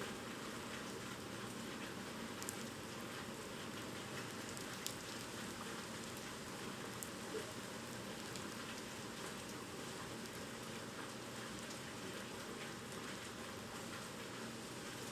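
Steady typhoon rain falling and splashing on surfaces, with a few sharper drips now and then.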